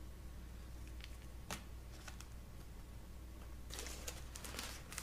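Faint rustling and crinkling of a burger's paper wrapper being handled while ketchup is put on, with a single sharp click about a second and a half in and a run of louder rustles near the end.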